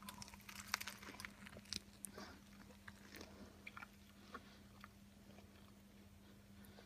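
Faint biting and chewing of a cheeseburger: small, irregular wet crunches, thicker in the first couple of seconds and then sparse, over a steady low electrical hum.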